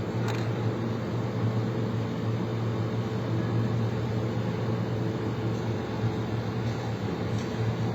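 Steady low mechanical hum of running machinery, with a few faint light clicks.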